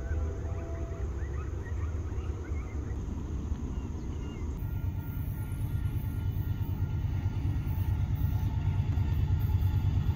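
A distant locomotive horn trails off in the first second. It is followed by the low rumble of an approaching diesel freight train, CPKC train 112, which grows steadily louder as it nears.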